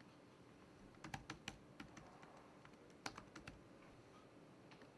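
Faint typing on a computer keyboard: a handful of quick keystrokes about a second in, then a shorter run about three seconds in.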